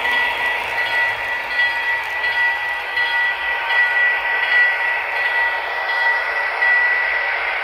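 Sound-equipped HO scale Broadway Limited GP20 model diesel locomotives running past: a recorded diesel engine sound with a steady high whine from the onboard speakers, mixed with the rolling of the train on the track.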